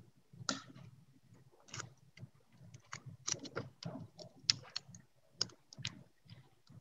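Paper being handled close to the microphone as a paper strap is folded and pressed onto the back of a paper puppet with tape: quiet, irregular soft clicks and crinkles.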